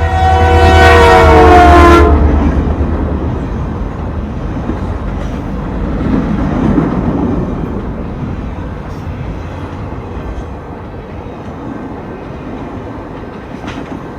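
Canadian Pacific Holiday Train locomotive sounding its horn as it passes, the chord dropping slightly in pitch before cutting off about two seconds in, over the diesel engine's throb. The train then rolls by with a steady rumble and some clickety-clack that slowly fades.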